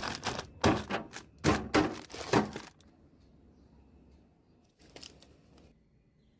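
Quick sharp clacks and knocks of containers and packaged items being set down and handled while restocking a fridge, five or six in the first few seconds. Then quiet, with one fainter click and rustle about five seconds in.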